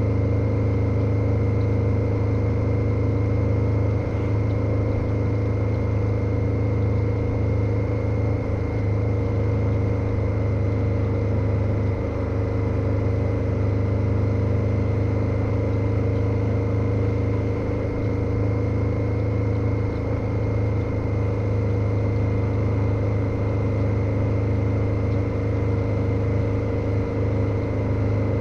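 KTM 1290 Super Adventure's V-twin engine running at a steady speed under way, an even drone with no revving or gear changes, and a thin steady whine above it.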